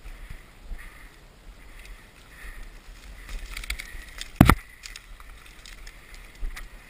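Hunters pushing on foot through tall dry bracken and twigs: rustling, swishing vegetation and small snaps, with one sharp crack about four and a half seconds in.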